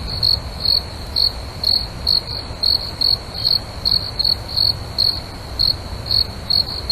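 Crickets chirping at night: a steady high trill with louder chirps about twice a second, over a low background rumble.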